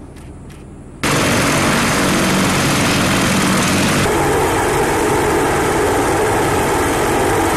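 AH-64 Apache helicopter's twin turboshaft engines and rotor running, loud and steady, cutting in suddenly about a second in after a faint low rumble. About four seconds in the sound shifts to that of the helicopter in flight.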